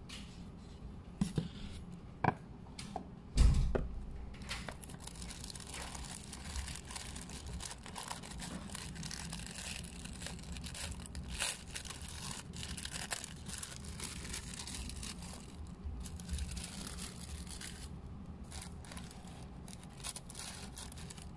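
Tissue paper rustling and crinkling as it is peeled open and unfolded, with a sticker seal being peeled off. A few sharp knocks come in the first few seconds, the loudest a dull thump about three and a half seconds in.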